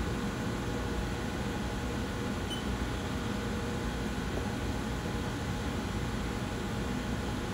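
Steady hum and hiss of running machinery, with several faint steady tones held throughout.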